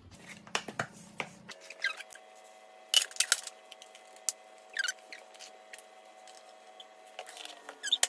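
A metal spoon scooping seeds out of a cardboard oats canister and glass jars and tipping them onto a plastic plate: scattered light taps, scrapes and clinks, the sharpest about three seconds in.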